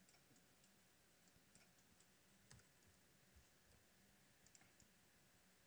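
Near silence with faint, scattered computer mouse clicks, irregularly spaced.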